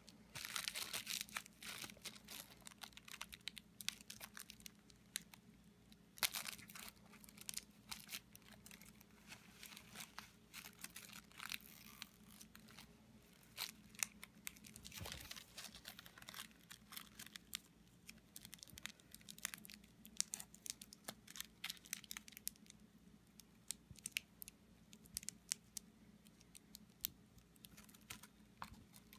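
Clear plastic bubble wrap crinkling and crackling in the fingers as a zip tie is worked through slits cut in it, in faint irregular clicks with a few louder crackles, over a steady low hum.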